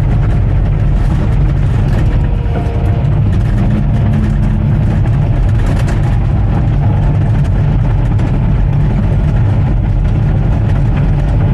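Bulldozer's diesel engine running steadily with a loud, even low drone.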